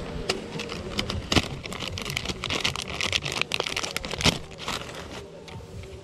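Soft-plastic fishing bait packaging being handled: the plastic packet and its clear plastic tray of worms crinkling and clicking in a quick, irregular run of crackles that is busiest in the middle.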